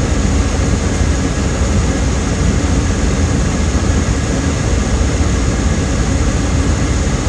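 Steady rush of a car's air-conditioning blower running inside the closed cabin, over a constant low rumble.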